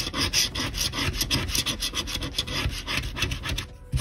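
A coin scraping the latex coating off a scratch-off lottery ticket in quick back-and-forth strokes, about five a second, easing off just before the end.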